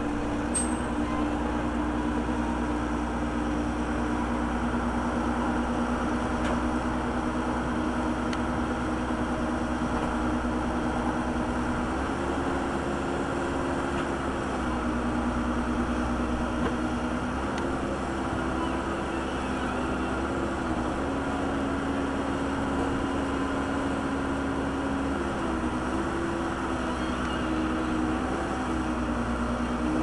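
Case backhoe's engine running steadily, its pitch shifting up and down a few times as the hydraulic arm works.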